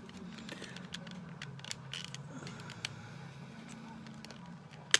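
Plastic parts of a Transformers Grimlock action figure clicking and creaking as they are moved and folded during transformation, a string of irregular small clicks over a low steady hum.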